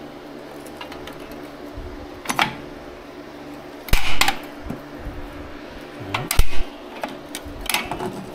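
Tools and brake parts clanking and clicking as a drum brake is taken apart to reach a bad wheel cylinder, with loud clatters about four and six seconds in, over a steady low hum.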